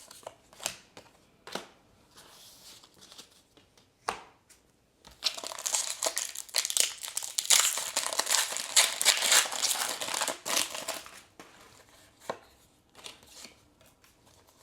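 Foil booster pack of trading cards being torn open and crinkled, a dense crackling stretch from about five to eleven seconds in, with scattered clicks and snaps of cards being handled before and after it.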